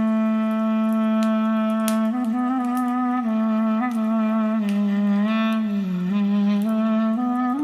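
Instrumental Turkish art music: a woodwind carries a slow melody, holding long notes and stepping gradually downward between sung phrases. A few sharp crackles of a fireplace fire sound over it.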